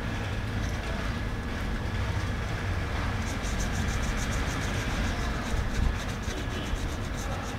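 Paintbrush working thick paint over a rough plastered surface: from about three seconds in, a quick run of soft scratches, several a second, over a steady low rumble.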